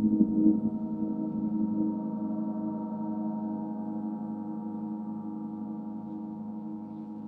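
Mercury planetary gong ringing and slowly fading: a deep hum with many overtones and a steady wavering pulse in the low tones.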